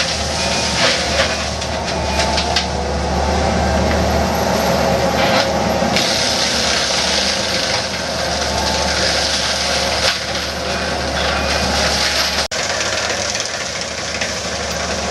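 A skid steer's diesel engine running under load while an FAE fixed-tooth mulcher rotor grinds through brush and wood: a steady low drone under a loud, dense shredding hiss. There is a brief break about twelve seconds in.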